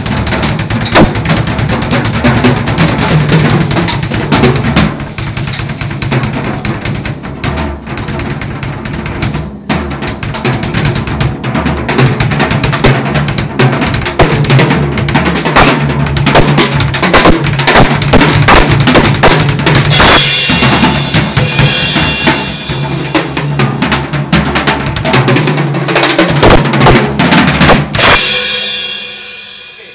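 Drum kit played hard and fast in a sound check: a steady stream of bass drum, snare and tom strokes, with cymbal crashes about two-thirds of the way through and again near the end, where the last crash rings and fades out.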